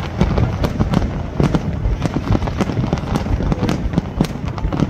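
Fireworks crackling: many rapid, irregular sharp bangs, several a second, over a steady low rumble.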